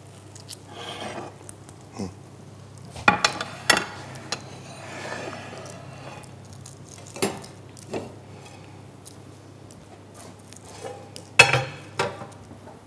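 Metal kitchenware clattering: tongs, pans and pots knocking and clinking in scattered bursts, with the loudest cluster near the end.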